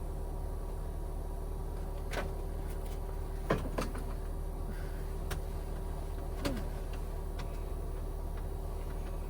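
A handful of light knocks and clicks, about five, the loudest a pair about three and a half seconds in, over a steady low machine hum.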